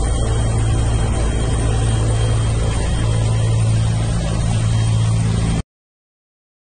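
Steady engine and rotor noise of a helicopter in flight, heard from inside the cockpit: a constant low hum over a dense rush. It cuts off abruptly about five and a half seconds in.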